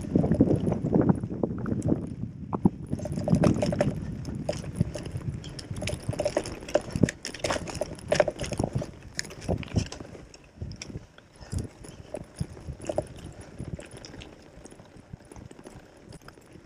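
Gravel bike rattling and knocking as it rolls over a rough, stony dirt track. The knocks are dense and loud at first, then thin out and get quieter after about ten seconds.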